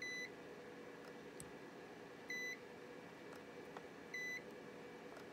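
Handheld battery spot welder beeping three times, about two seconds apart, each a short high beep, as its pen is pressed to nickel strip on Sub-C Ni-Cd cells. Faint clicks fall between the beeps.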